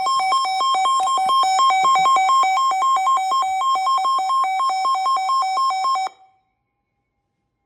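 Electronic weather alert tone announcing a tornado warning: two pitches alternating rapidly for about six seconds, then cutting off abruptly.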